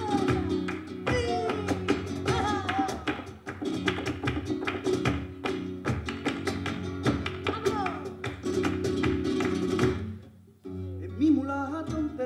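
Live flamenco guajira: a flamenco guitar plays, cut through all along by sharp percussive clicks and strikes from the dancer's footwork, palmas and percussion. A little after ten seconds in the music drops away briefly, then a low note and a voice come in.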